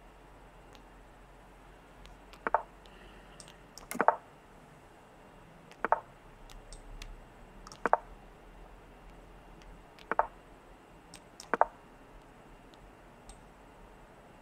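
Six sharp clicks, roughly one every two seconds, as moves are played in an online chess game.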